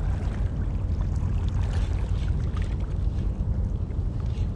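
Steady wind rumble buffeting the microphone.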